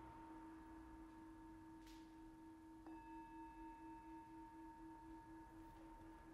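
Hand-hammered brass singing bowl ringing with a steady low hum and higher overtones. A light tap with its wooden striker about three seconds in brightens the ring, and after that the low tone wavers in a regular beat.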